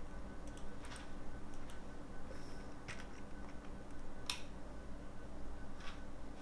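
A handful of isolated clicks at a computer, a second or two apart, the sharpest about four seconds in, over a low steady hum.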